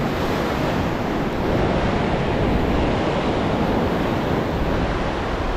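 Ocean surf breaking and washing up a sandy beach, a steady rush of waves.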